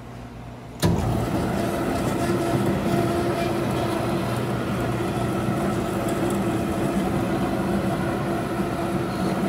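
W.F. Wells F-15 horizontal band saw running with its blade cutting into a clamped metal workpiece under flowing coolant. The sound comes in abruptly about a second in: a steady machine hum with several steady tones over a hiss, holding level throughout.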